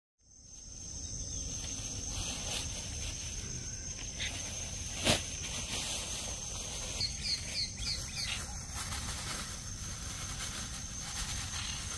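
A steady, high-pitched insect trill runs throughout, with a quick run of about five short bird chirps a little past halfway and a single sharp click about five seconds in.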